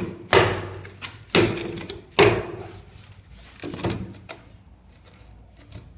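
Grey plastic sewer pipe fittings, fitted without their rubber seals, being pushed and knocked together in a trial assembly: four sharp knocks in the first two and a half seconds, then a few softer ones.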